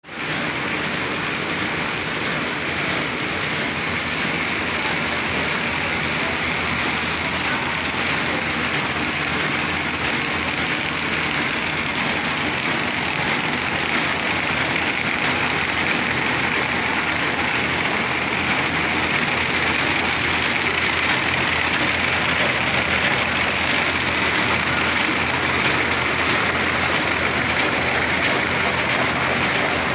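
Paper bag making machine running steadily: a dense, unbroken mechanical noise.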